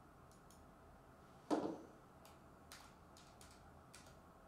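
Computer keyboard being typed on: scattered light, sharp key clicks, with one louder short thump about a second and a half in.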